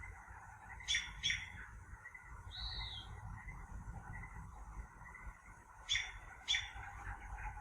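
Wild birds calling: two quick pairs of sharp chirps and one short whistled note that rises and falls, over a steady low background of outdoor noise.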